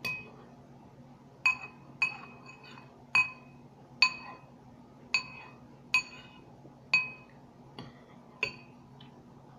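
A metal spoon clinking against a cereal bowl about ten times, roughly once a second, as spoonfuls are scooped out. Each strike rings briefly at the same pitch.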